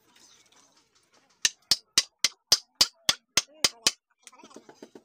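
Hammer rapping a wooden strut, about ten quick sharp blows at roughly three to four a second, as the strut is driven into the turned wooden hub of a table base. Near the end comes a softer, quick rattling clatter of wood.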